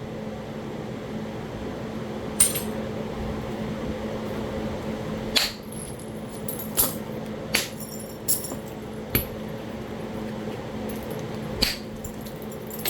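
About seven sharp, clicking knapping strikes, unevenly spaced, as flakes are driven off a piece of Talahata quartzite, over the steady hum of an electric fan.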